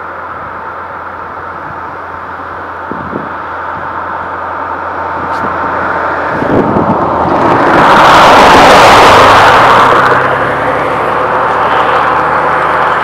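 A vehicle passing close by, its noise swelling to a loud peak about eight seconds in and then fading, over a steady low hum.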